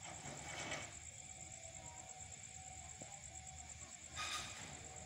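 Faint night ambience of insects trilling in a steady, high, evenly pulsing chirr, with two brief rushes of noise, one just before a second in and a louder one a little after four seconds.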